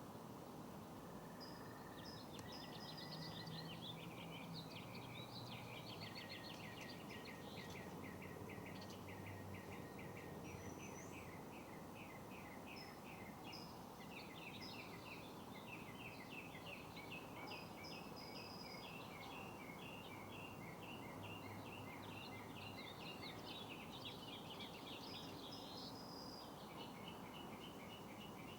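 Several small birds singing: repeated chirps and fast trills, over a faint steady background noise.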